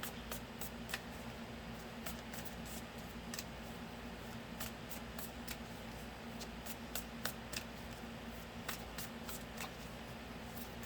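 Tarot cards being drawn, turned over and laid down: scattered light clicks and snaps of card stock at an uneven pace, over a steady low hum.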